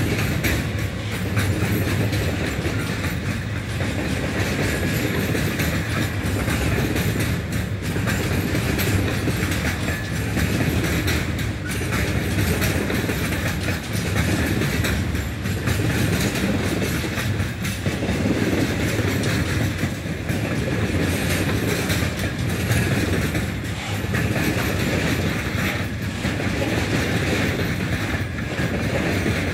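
Container freight train's wagons rolling past close by: a steady, loud rolling noise with a rhythmic clickety-clack of wheels over the rails.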